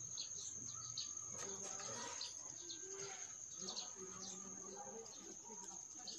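Small birds chirping, short high calls repeated again and again, with a person's voice or an animal call now and then.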